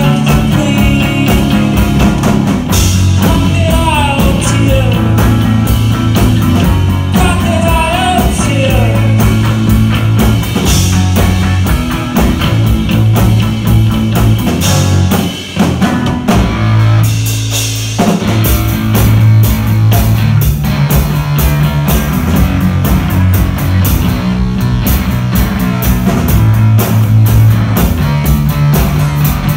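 Live rock band playing: electric guitar, electric bass and drum kit. About halfway through the band drops out briefly, a low note is held, and then the full band comes back in.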